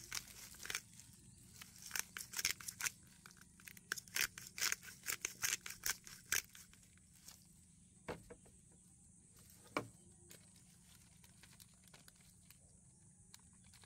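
Hand-held glass spice grinder being twisted, grinding black pepper in a quick run of grinding clicks that stops about six seconds in, followed by a couple of single knocks.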